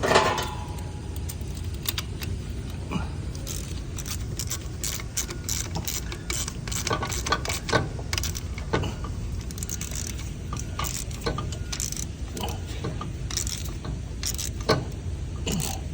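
Irregular metallic clicks and clinks of a wrench working the nut down onto the starter's power-wire stud, over a steady low hum.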